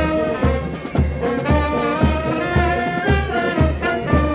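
Marching band of flutes, clarinets and brass, including trumpets and a sousaphone, playing a tune in march time. A deep beat keeps time about twice a second.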